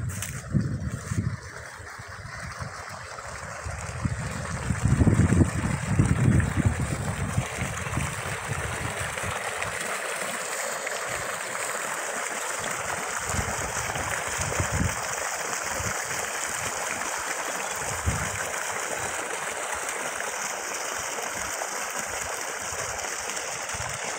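Water from a tubewell discharge pipe gushing into an irrigation channel with a steady, even rush. A few heavy low rumbles sound in the first seven seconds.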